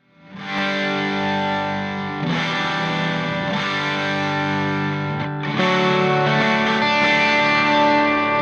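Background music: distorted electric guitar playing sustained chords, fading in at the start, with chord changes about two and five seconds in.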